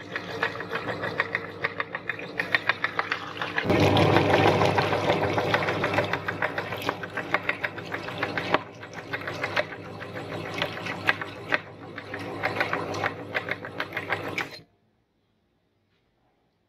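Electric meat grinder running while grinding grapes, a steady motor hum with a fast rhythmic clatter. It grows louder and heavier about four seconds in as the grapes are crushed, then cuts off abruptly near the end when the machine is switched off.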